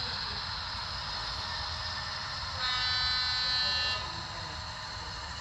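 HO scale model diesel locomotive's horn, played by its sound decoder: one steady blast starting about two and a half seconds in and lasting about a second and a half, over a steady background hiss.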